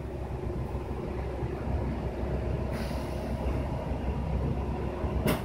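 Steady low mechanical rumble with a faint hum, and a short hiss about three seconds in.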